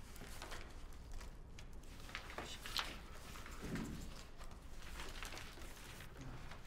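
Quiet lecture-hall room tone with scattered faint clicks and rustles from a seated class.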